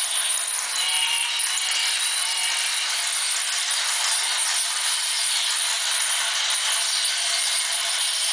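Two plastic toy trains running at once on their track loops: a steady, fast clatter of small motors, gears and wheels on plastic track.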